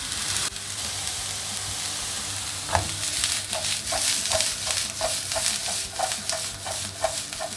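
Chopped red onion and smoked salmon sizzling in olive oil in a nonstick frying pan. From about three seconds in, the pan is shaken and tossed, giving a rhythmic series of short clinks, about three a second, over the steady sizzle.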